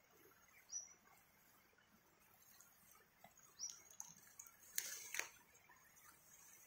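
Quiet undergrowth: a bird gives a short, high chirp twice, and about five seconds in a brief crackling rustle of fern fronds being snapped and gathered by hand.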